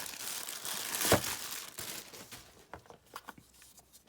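Packaging wrap being crumpled and torn off a newly unboxed item, a dense rustling with a sharp crackle about a second in, thinning after about two seconds to a few light handling clicks.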